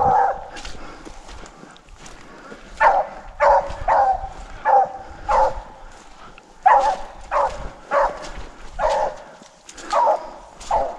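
Rabbit-hunting hounds baying as they run a swamp rabbit: about a dozen short barks in two bunches, each call dropping slightly in pitch.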